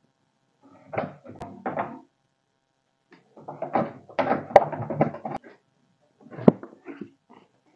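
Wood chisel scraping and knocking in the latch mortise on the edge of a wooden door: two short bursts about a second in, then a longer run of scraping with sharp knocks from about three to five and a half seconds. A single knock follows as the wooden door is lifted and turned.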